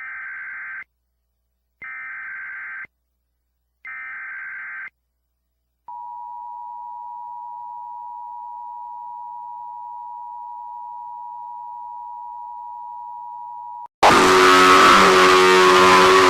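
Emergency Alert System broadcast tones: three one-second bursts of the buzzy digital header data, spaced evenly, then the steady two-tone EAS attention signal held for about eight seconds. At the end a much louder, harsh many-pitched blare cuts in abruptly.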